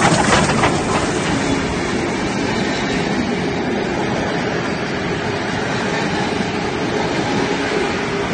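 Vintage steam-hauled passenger train passing close by, a steady rumble of its wheels on the rails. It is loudest as the locomotive and tender go past at the start, then the wooden carriages roll by.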